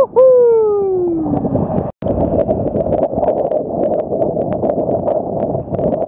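Strong wind and choppy seawater rushing at the microphone, with scattered small splashes. In the first second and a half a pitched hoot-like tone slides steadily downward, and the sound cuts out for an instant about two seconds in.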